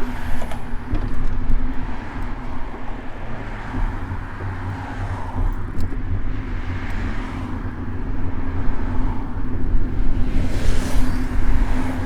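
City road traffic heard from a moving bicycle: cars running close by, with low rumble on the microphone and a steady hum underneath. A louder hiss swells near the end, like a vehicle passing close.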